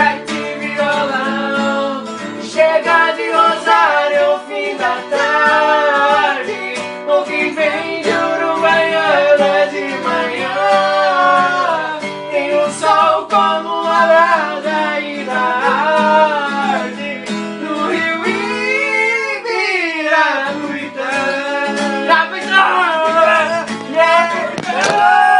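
Men singing along with a strummed acoustic guitar.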